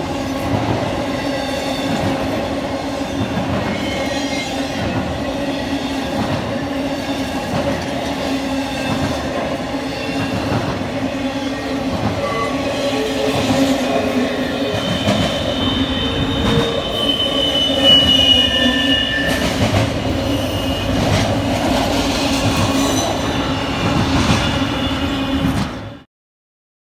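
Intermodal container freight train passing close by: a steady rumble of railcars with regular clacking of wheels over the rail joints. A high metallic wheel squeal rises for a few seconds past the middle, and the sound cuts off suddenly near the end.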